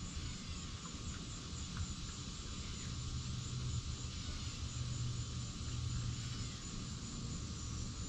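Outdoor ambience: a steady low rumble that swells around the middle, like distant traffic, over a constant high drone of evening insects.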